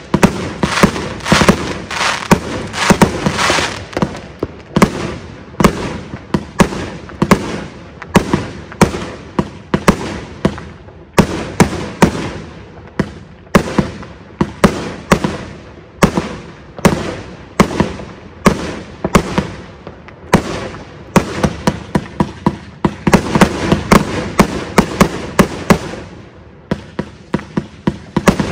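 Consumer fireworks cake firing a rapid series of shots from one spot, each a sharp bang, about one to two a second. The shots briefly thin out near the end, then come back in a quicker run.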